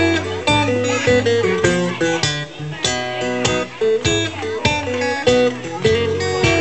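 Acoustic guitar played live: a strummed and picked instrumental intro with bass notes, in a steady rhythm.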